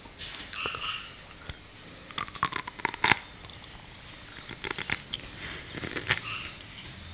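Close-miked chewing of sea grapes (Caulerpa seaweed): a scatter of sharp wet pops and clicks as the little beads burst in the mouth. They come thickest about two to three seconds in and again around five to six seconds.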